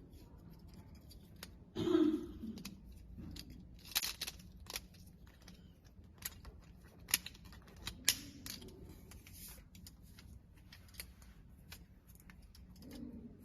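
Sharp, scattered plastic clicks and light rattling of network parts being handled at a patch panel, with a louder knock about two seconds in.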